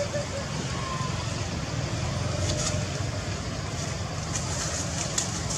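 Steady low rumble and hiss of outdoor background noise, with a few faint short clicks.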